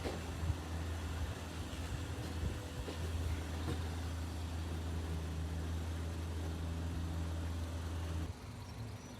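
An engine idling with a steady low hum that stops abruptly about eight seconds in.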